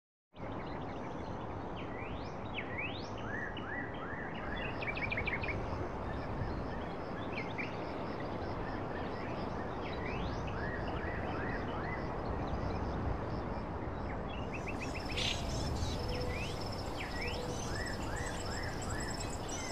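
Several wild birds calling over steady wind noise: short whistled notes sweeping up and down, and quick runs of chirps. In the last few seconds a thin, high, steady tone joins in.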